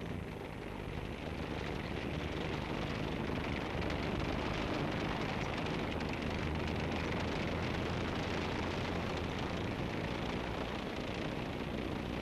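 A vehicle engine running steadily, a low rumble under a wash of noise, growing a little louder over the first few seconds.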